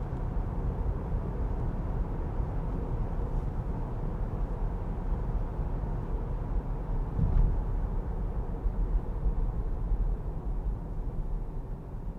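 Tyre and road noise heard inside the cabin of a 2023 Jeep Grand Cherokee L at highway speed: a steady low rumble as the car goes from pavement onto a rough stretch of road, with a single thump about seven seconds in.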